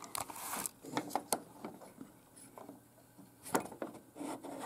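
Light clicks and clacks of a pinball flipper mechanism worked by hand: the plunger moves in and out of the coil and the end-of-stroke switch opens and closes. Several clicks come in the first second and a half, then a couple more about three and a half seconds in and near the end.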